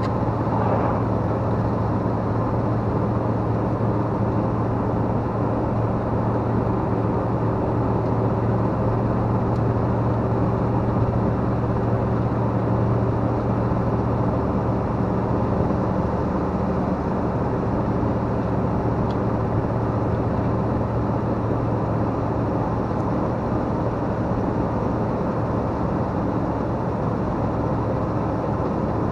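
RV campervan driving at a steady cruising speed: continuous engine drone with a low steady hum, mixed with tyre and road noise.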